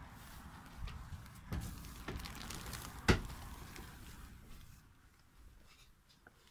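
Footfalls and knocks as someone climbs down the companionway steps into a small sailboat cabin, the loudest a single sharp thump about three seconds in. Light rustling goes with the first few seconds, and it turns quieter after about five seconds.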